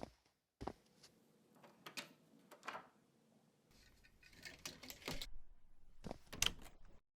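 A series of sharp knocks, clicks and rattles over faint room noise, loudest in a cluster near the end, cut in and out abruptly.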